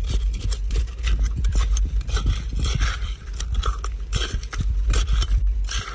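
A small metal hand trowel digging for clams in wet, shelly gravel and sand: rapid, irregular crunching scrapes and clicks as grit, stones and shells are dug and pushed aside, over a steady low rumble.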